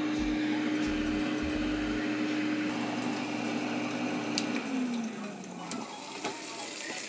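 Basket air fryer's fan running with a steady hum and rush of air, then winding down with a falling pitch about four and a half seconds in, as the basket is pulled open and the fryer stops.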